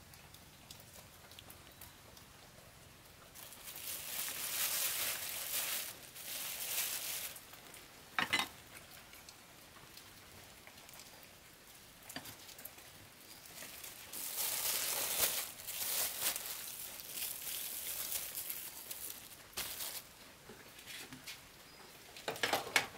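Thin plastic bag rustling and crinkling in several bursts a few seconds long as it is held open and filled with spring rolls, with a sharp click about eight seconds in. Near the end come a few knocks from a small wooden door being opened.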